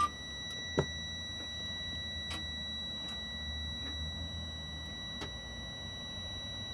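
Faint steady low hum with a thin, high-pitched steady whine over it, and a single sharp click about a second in.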